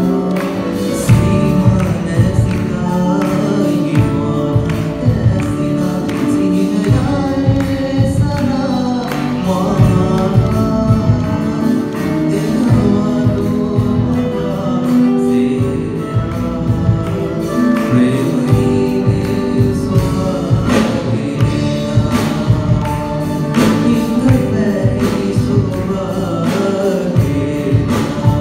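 A small group of male and female singers singing a song together with a live band of electric and acoustic guitars, keyboard and drums, with a steady beat.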